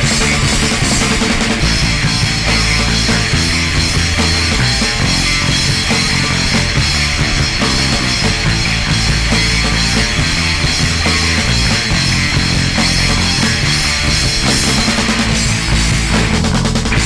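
Loud, dense punk rock instrumental with distorted guitars, bass and drums, no singing.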